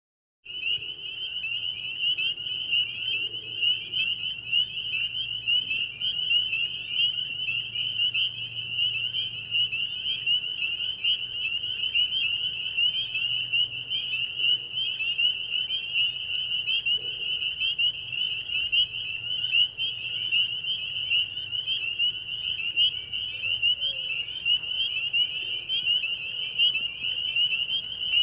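A dense chorus of crickets chirping steadily in rapid pulses, starting about half a second in.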